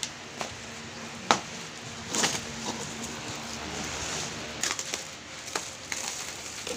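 Cardboard packing and plastic wrap being handled and pulled off a wrapped equipment case: scattered knocks, scrapes and short rustles, with the sharpest knock about a second in.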